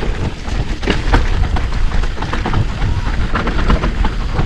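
Electric mountain bike rattling and clattering at speed over a rough dirt trail: dense, irregular knocks from the chain, suspension and tyres hitting rocks and ruts. Wind buffets the handlebar camera's microphone, giving a constant low rumble.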